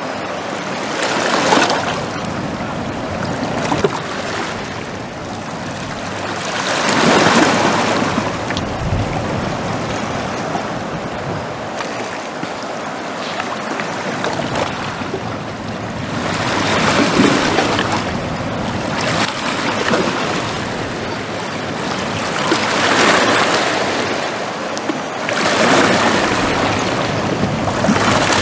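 Niagara River whitewater rapids rushing in a steady wash of water noise that swells louder every several seconds.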